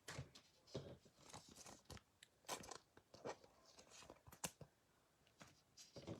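Faint, scattered clicks and rustles of football trading cards being handled and shuffled by hand.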